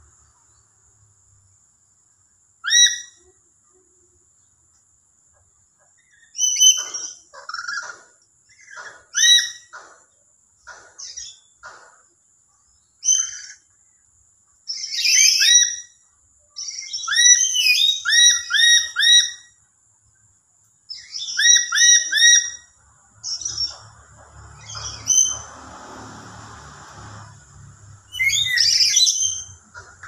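Lory (nuri) giving short, shrill, rolling whistled calls in bouts, often three or four quick notes in a row. Near the end there is a rougher rushing noise with a low rumble under it.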